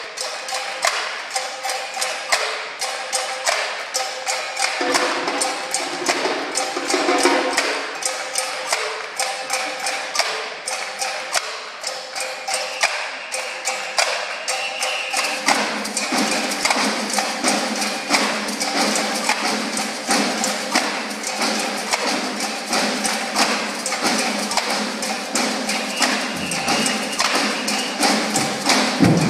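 Percussion ensemble drumming a steady, fast rhythm of sharp strikes. A deeper, fuller drum sound comes in about halfway through.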